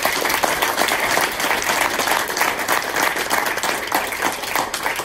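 An audience applauding, many hands clapping densely and steadily.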